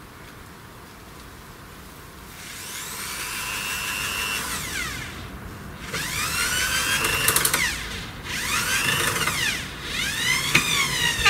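An electric drill-driver driving wood screws into the shed boards, in four runs, its motor whine rising as each starts and falling away as it stops.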